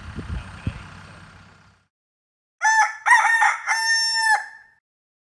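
A rooster crowing once, starting about halfway through: a cock-a-doodle-doo of a few short notes that ends in a long held note.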